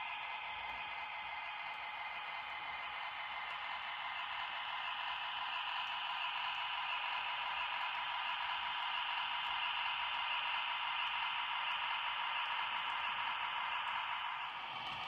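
HO scale model of a Norfolk Southern MP15DC switcher running slowly along the track with two freight cars, a steady hum from the model's motor and wheels. It grows a little louder midway as the locomotive comes close, then drops shortly before the end.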